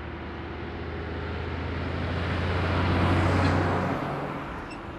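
A flatbed lorry drives past close by. Its diesel engine runs with a steady low note over tyre and road noise, growing louder to a peak about three seconds in and then fading as it goes by.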